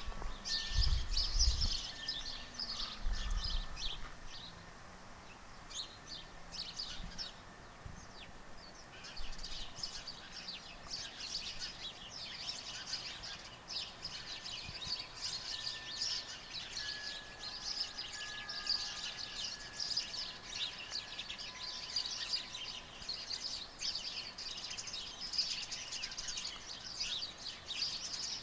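A chorus of small birds chirping and twittering continuously. A few low thumps sound in the first few seconds.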